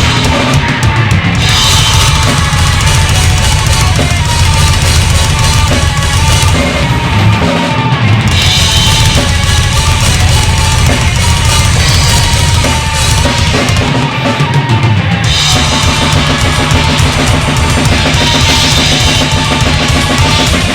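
Rock song with a full drum kit driving a steady beat: bass drum and cymbals over the band.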